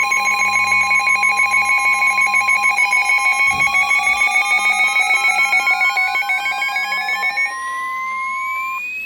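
Emergency alert tones layered together: a rapidly pulsing two-pitch electronic alarm, about six pulses a second, over a steady tone near 1 kHz, joined about three seconds in by a tone sweeping slowly upward in pitch. The pulsing alarm cuts off near the end, then the steady tone, leaving the rising sweep.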